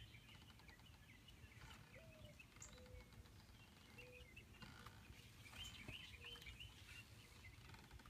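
Near silence with faint birdsong: short chirps and trills, several in quick runs, over a low steady background rumble.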